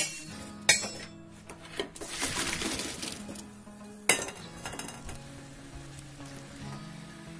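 Cookware clinking against a pan on the stove: three sharp knocks, at the start, just under a second in and about four seconds in, with a brief hiss of sizzling about two seconds in.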